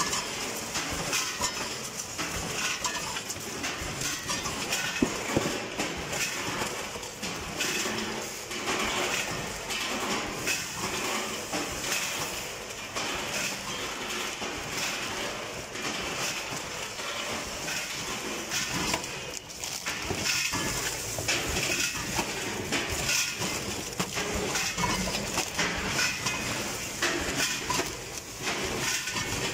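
Vertical form-fill-seal packing machine running, with a steady mechanical clatter of many irregular clicks and knocks as it forms, fills and seals snack bags.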